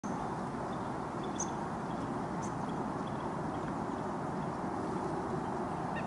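Steady outdoor rushing noise with a few faint, high bird chirps, about one and a half and two and a half seconds in.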